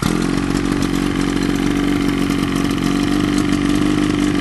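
25-horsepower outboard motor running steadily at a constant speed, which the seller takes as a sign the engine is sound.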